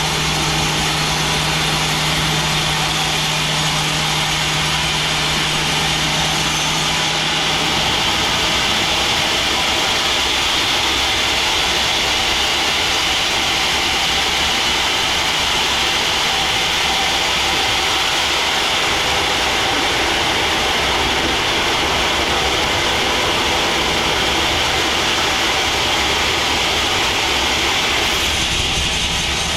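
Band sawmill running with a loud, steady mechanical noise. A low hum in it drops away about seven seconds in and comes back near the end.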